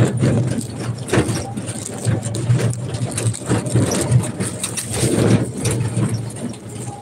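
Ride noise in a moving small vehicle: a steady low engine drone with irregular rattles and knocks throughout.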